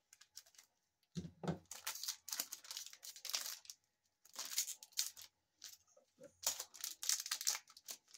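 Zenith football card pack wrapper being torn open by hand and crinkling, in several bursts of crackling with short pauses between.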